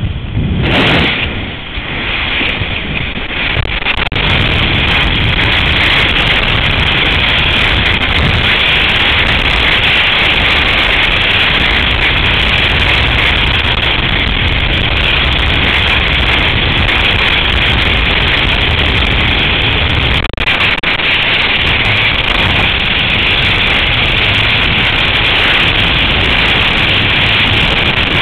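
Wind rushing over the camera's microphone in skydiving freefall: a loud, steady rush of noise that is uneven for the first few seconds, just after the jumper leaves the aircraft, and then holds constant.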